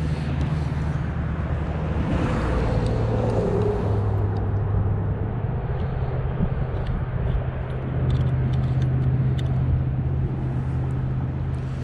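Road traffic: motor vehicle engines giving a steady low hum, its pitch shifting as vehicles come and go, about two seconds in and again about eight seconds in.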